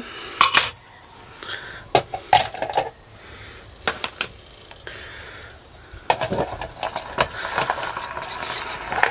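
Light metal cookware of a Trangia stove clinking and knocking as the simmer ring is set over the spirit burner and the pans are stacked on the stove. There is a series of short, sharp clinks, grouped in clusters.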